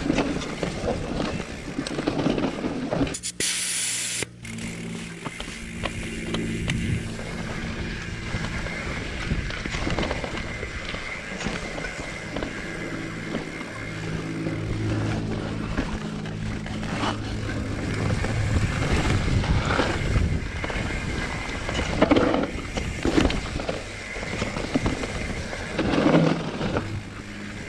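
YT Capra CF Pro 2019 full-suspension mountain bike clattering and rattling over a dirt forest trail, with wind on the microphone, under background music with held low notes. A brief loud hiss about three seconds in.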